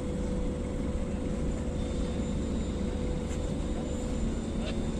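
Steady low drone of heavy port machinery, with a thin steady hum above it, as the crane holds the speed boat in its slings.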